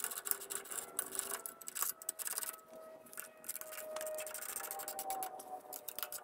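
Socket ratchet clicking in quick runs as the bolts holding steel weight plates are tightened, with a lull about halfway through.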